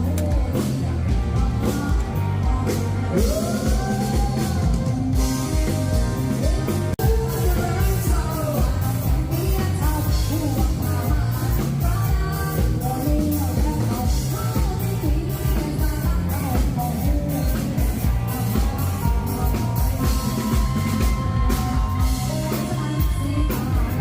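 Live band playing a Thai song: a singer over a steady drum beat, with bass and keyboard.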